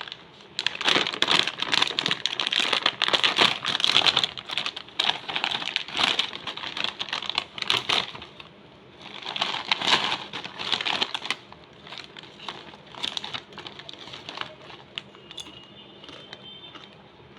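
Plastic snack wrapper crinkling and crackling as it is opened and handled, in two long spells, then only faint rustles from about eleven seconds in.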